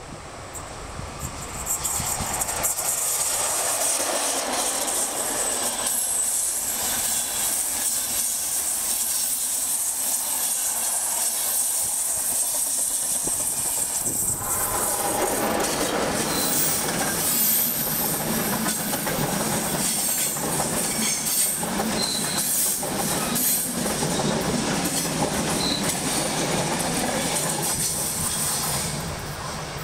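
A long RegioJet passenger train hauled by an electric locomotive passing close by: a loud rumble and clatter of coach wheels over the rails that starts about two seconds in and fades near the end. Short high wheel squeals show up in the second half.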